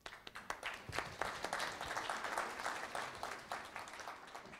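Audience applauding, starting all at once and slowly thinning out toward the end.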